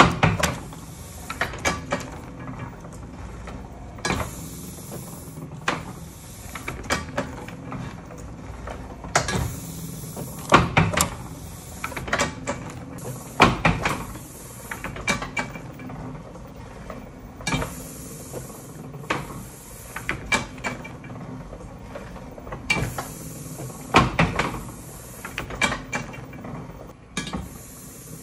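Chandler & Price platen letterpress running through its print cycles, its platen and roller mechanism clanking and clicking in a repeating rhythm, with a brief hiss every four to five seconds.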